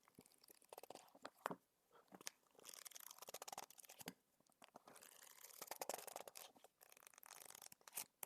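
Fingers working on books close to the microphone: soft scratching and rustling on the covers and paper, with a few light taps in the first couple of seconds.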